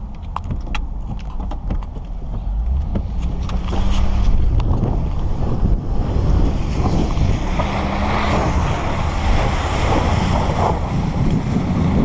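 Pickup truck driving through mud and standing water: engine rumble under tyres churning and splashing mud, with wind buffeting the outside microphone. A few sharp clicks in the first couple of seconds, and the sound grows louder about four seconds in.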